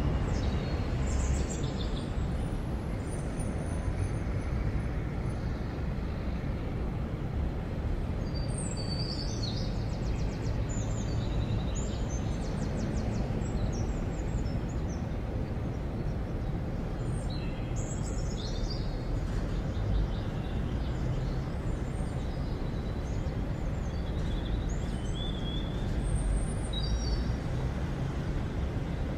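Outdoor town ambience: a steady low rumble of distant traffic, with birds chirping in short bursts now and then.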